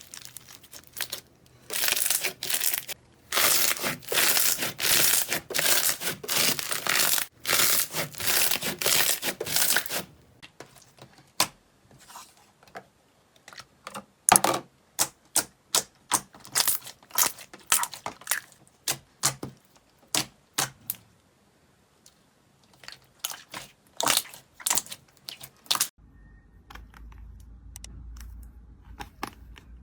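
Slime being pressed and stretched by hand: a dense run of crackling and tearing for about eight seconds, then a string of separate sharp pops and clicks, which thin out near the end.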